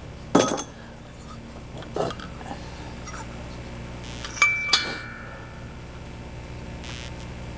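Metal engine parts being handled on a table: a few separate knocks and clinks, one about half a second in, one about two seconds in and a quick pair about four and a half seconds in, the last ringing briefly. A steady low hum runs underneath.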